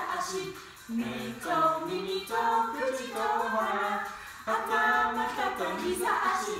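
A group of voices singing a song with no instruments, in phrases broken by short pauses about a second in and again past the middle.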